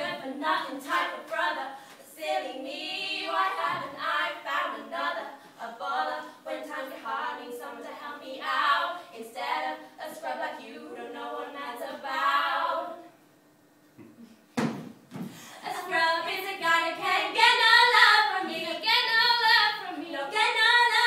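Two women's voices singing together without accompaniment, with a short pause about two-thirds of the way through, broken by a couple of sharp knocks, before the singing comes back louder.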